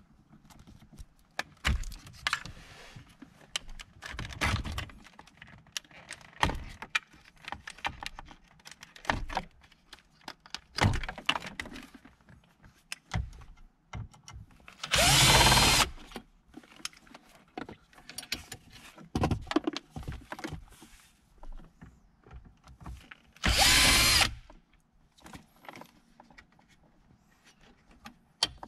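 Compact cordless drill/driver running in two short spells, the first a little over a second long about halfway through and the second just under a second long later on, turning screws in the dashboard's radio bracket. Between them, short plastic clicks and knocks from trim pieces and wiring connectors being handled.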